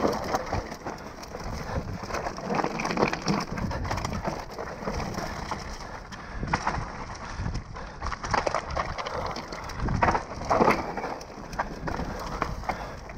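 Mountain bike descending a dry, leaf-strewn dirt trail: tyres rolling over leaves and dirt, with irregular knocks and rattles as it hits bumps, loudest about ten seconds in.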